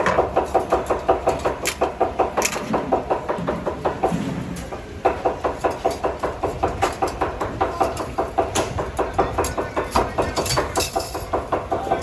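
A knife chopping rapidly on a cutting board in steady strokes, about three to four a second. It pauses briefly about four seconds in, then chops on.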